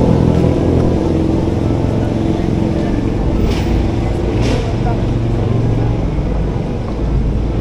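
A motor vehicle engine running close by in street traffic, a steady low rumble, with two short hisses about three and a half and four and a half seconds in.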